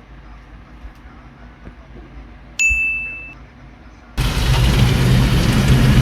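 A single high, bright ding that rings out for under a second. Then, a little over four seconds in, a loud, steady noisy rumble with a low hum starts suddenly.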